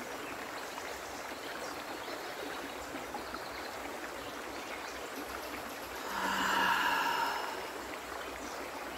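River water flowing steadily over stones in a shallow rocky stream. About six seconds in, a woman's voice holds one long tone for a little over a second.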